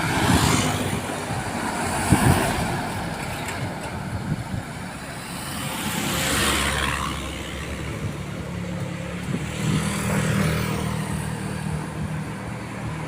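Road traffic: vehicles passing close by one after another, each a rush of engine and tyre noise that swells and fades, about three passes. A low engine drone runs underneath from about two-thirds of the way in.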